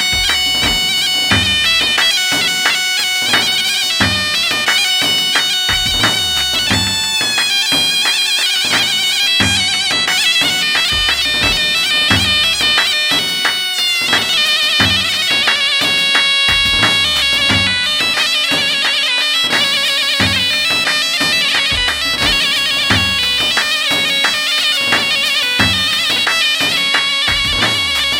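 Instrumental break in Arabic dance music: a reedy, nasal wind-instrument melody over a steady drum beat.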